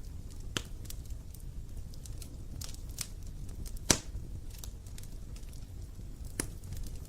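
Campfire burning with a low steady rumble and scattered sharp crackles and pops from the wood, the loudest a single snap about four seconds in.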